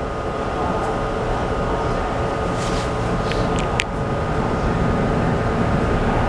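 Tokyu 3020-series commuter train standing at a platform with its doors open: a steady hum of the car's air conditioning and onboard equipment with a thin steady tone over it, and a few light clicks around the middle.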